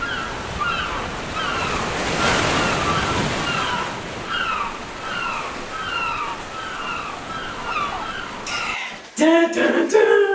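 Ocean surf rushing, with short falling calls repeating about every half second over it. Near the end the surf cuts off abruptly and voices and laughter begin.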